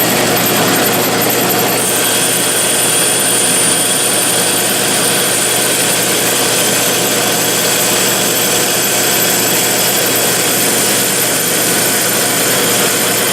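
A power tool's motor runs loudly and steadily, a continuous mechanical whir with a faint high whine whose pitch shifts slightly about two seconds in.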